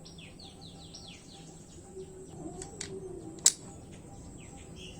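Small birds chirping in quick runs of short falling notes, with a few light clicks and one sharp, louder click about three and a half seconds in.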